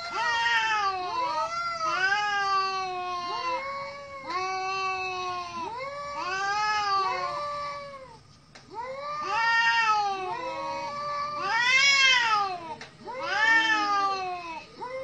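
Two cats yowling at each other in a standoff, long wavering wails that rise and fall and overlap, with a short lull about eight seconds in and the loudest call near twelve seconds. These are the warning yowls of two rival cats squaring off before a fight.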